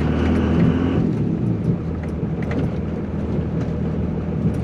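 Cummins diesel truck engine running steadily as the truck moves, with a higher hiss that cuts off about a second in.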